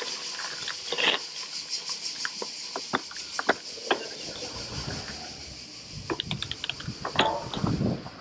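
Scott Speedster gravel bike being ridden over a gravel path: tyres crunching, with sharp clicks and rattles from the bike over bumps, under a steady high hiss. From about halfway a low rumble of wind on the microphone builds as the bike rolls onto paving.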